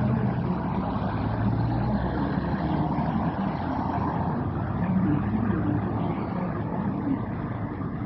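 Steady rumble of road traffic, with a low engine hum in the first couple of seconds that then fades a little.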